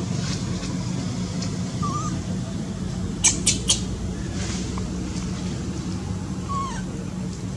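Baby monkey giving a few short, thin squeaks, one wavering and one falling in pitch, over a steady low hum. Three sharp clicks come in quick succession about halfway through.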